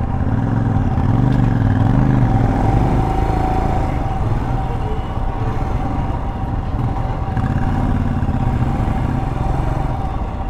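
Royal Enfield Himalayan's single-cylinder engine under way in traffic, its pitch rising and falling as the throttle is opened and closed, in two spells.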